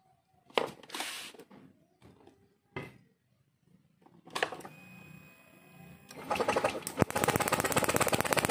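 Honda Scoopy FI scooter engine being turned over on its electric starter, spark plug out, to check the ignition. A steady hum starts about four seconds in. From about seven seconds a loud, fast, even run of sharp clicks takes over, showing the ignition is firing again.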